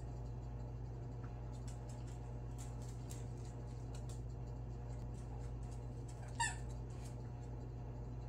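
A puppy tugging a plush toy around in a soft dog bed: faint rustling and scuffing, with one short, high, slightly falling squeak about six seconds in. A steady low hum sits underneath.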